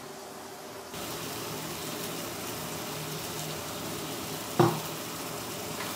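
Diced chicken sautéing in a frying pan, an even sizzle that starts about a second in, with one sharp knock about four and a half seconds in.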